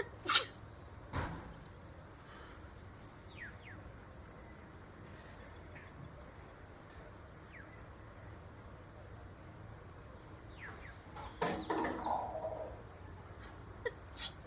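A woman clearing her nose: a loud, sharp nasal burst about a third of a second in and a weaker one about a second later, then a longer run of nasal blowing and sniffing about eleven seconds in. Faint bird chirps are heard in the quiet between.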